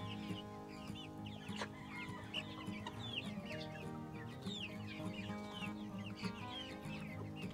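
A flock of young Rhode Island Red and Dominant CZ chickens peeping and clucking, many short calls overlapping several times a second, over soft background music.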